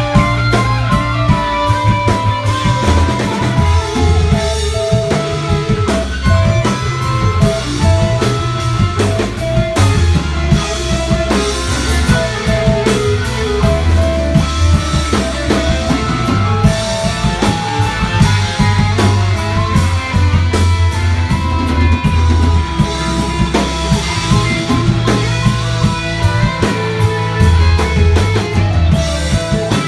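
Rock band playing live without singing: a drum kit and guitar over a steady, prominent low bass line.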